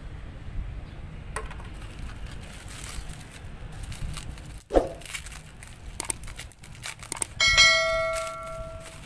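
Bubble wrap crinkling and crackling as it is handled, with a brief squeak about halfway. Near the end comes a bell-like ding that rings and fades over about a second and a half, the sound effect of an on-screen subscribe-and-bell reminder.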